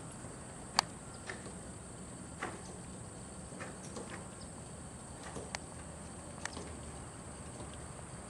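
A steady high-pitched drone of insects, with occasional soft, irregular clicks from the ridden horse's hooves and tack on the arena sand.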